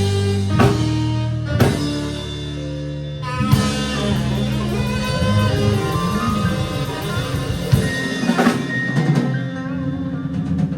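A live band plays the tune: sustained bass notes and chords with drums, punctuated by sharp accented hits, the strongest about half a second, a second and a half, three and a half and eight and a half seconds in.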